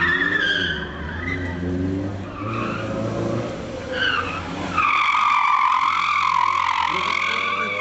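Dacia Logan's tyres squealing as the car slides through a tight turn, with the engine running underneath; a loud, long squeal starts about five seconds in.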